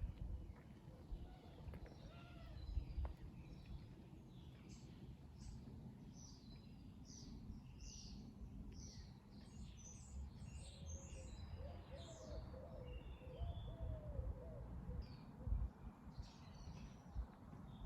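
Songbirds singing at dawn: a busy run of quick, high chirping phrases through the middle, with lower wavering notes from another bird later on, over a steady low background rumble.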